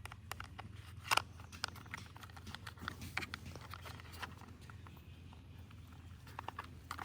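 Faint, scattered clicks and taps of plastic toy parts being handled and fitted together, with one sharper click about a second in.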